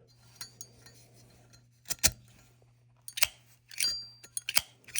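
Brass Zippo lighter being handled: a series of sharp metallic clicks and clinks from its hinged lid and case, one a little before four seconds in leaving a short high ring.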